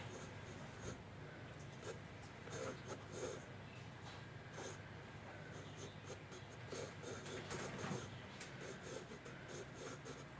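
Pencil scratching on sketchbook paper in many short, quick strokes.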